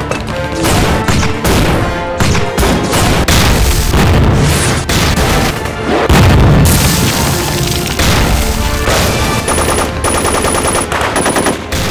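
Battle sound effects: gunfire and explosions, with fast machine-gun fire near the end, over dramatic film music.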